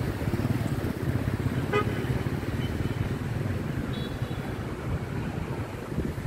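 Steady street traffic of motorbikes and cars running around a roundabout, with a short horn toot about two seconds in.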